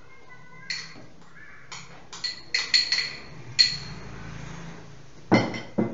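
A metal spoon tapping and clinking on the rim of a blender jar, several sharp ringing taps in quick succession, as dried grated coconut is knocked off it into the jar. Two heavier, duller knocks come near the end.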